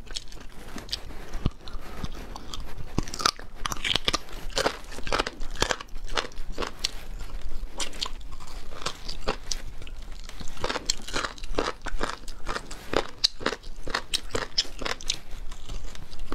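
A person biting and chewing seasoned chicken bones with crunchy cartilage on them: a quick, irregular run of crisp crunches with wet chewing between them.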